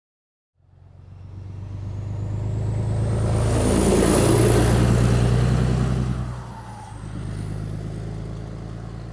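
A large truck's engine running and accelerating. It fades in about half a second in and grows louder, with a high whine rising in pitch. It dips briefly a few seconds later, then carries on at a lower level.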